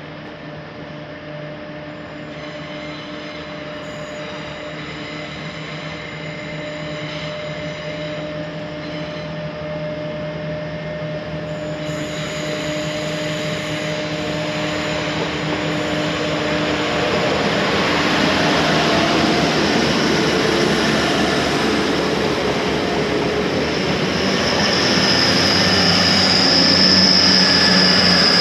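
A train drawing near and growing steadily louder. Steady humming tones come first, then the noise of wheels on the rails builds, and a high-pitched wheel squeal sets in near the end.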